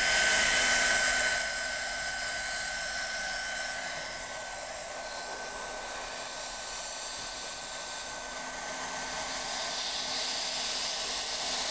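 Hot-air plastic welding gun blowing steadily as a plastic filler rod is melted into a crack in a motorbike panel: an even hiss with a faint steady whine, a little louder for the first second or so.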